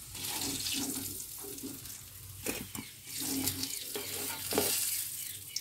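Potato pieces sizzling in hot oil in a metal wok, with a perforated metal slotted spoon scraping and knocking against the wok as it lifts them out.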